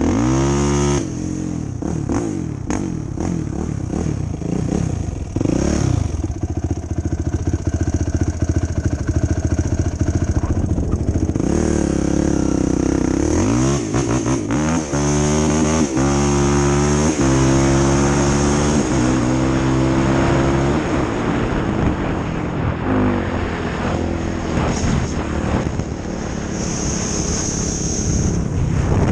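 2005 Yamaha YFZ450 ATV's single-cylinder four-stroke engine under way, running and blipping at first, then about halfway through accelerating up through several gears, its pitch climbing and dropping at each shift.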